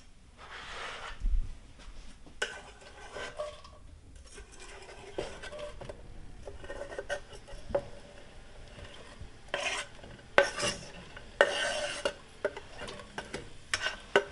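A knife scraping diced onion off a wooden cutting board into an enamelled pot in a series of short scrapes and taps, the stronger ones in the second half, with a faint sizzle as the onion lands in hot olive oil.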